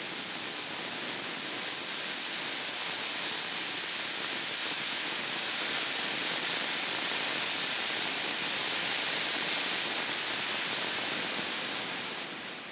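A small Standard Fireworks Traffic Cones fountain burning with a steady rushing hiss as it throws up its shower of silver sparks. The hiss swells a little midway and dies away just before the end as the fountain burns out.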